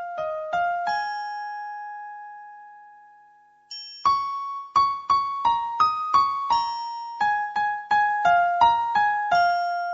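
Closing music: a slow single-line keyboard melody with a piano-like sound. A few notes lead into a long note that fades away, then after a short gap a quicker run of notes follows.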